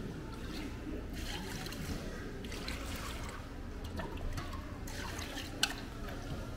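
Water sloshing and trickling in a pot as soaked rice is scooped, stirred and rubbed by gloved hands, in several spells, with one sharp click a little over five and a half seconds in.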